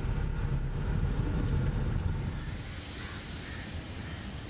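Car road noise heard from inside the cabin, a steady low rumble, which gives way about two seconds in to a quieter, even outdoor background hiss.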